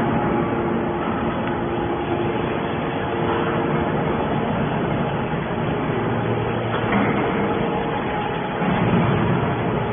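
Heavy scrap-metal baling machinery running steadily: a continuous mechanical din with a few steady humming tones, a little louder about seven seconds in and again near the end.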